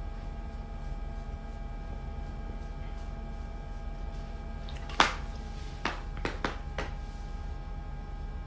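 Phone handling noise: one sharp knock about five seconds in, then four quieter clicks over the next two seconds, over a steady electrical hum.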